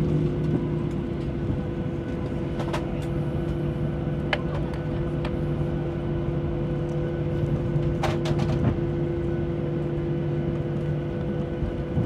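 Steady cabin hum of a Boeing 737-800 taxiing after landing, its CFM56 engines at idle, with a few short sharp clicks about three, four and eight seconds in.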